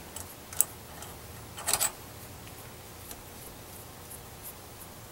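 Small metal clicks from a T-handle tap wrench and tap being handled at a bench vise: one sharp click about half a second in, a short clatter of clicks just before two seconds, then a few faint ticks.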